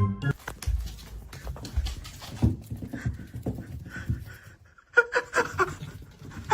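Animal sounds: irregular short noises, then about five seconds in a quick run of short pitched calls.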